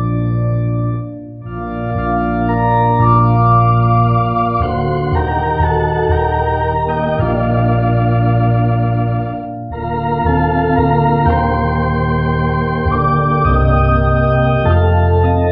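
Organ playing slow sustained chords over a strong bass, the chords changing every second or two, with two short breaks between phrases: about a second in and again near ten seconds in.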